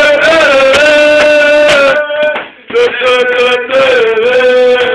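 Loud singing in long held notes that slide a little from one pitch to the next, with a short break about two seconds in.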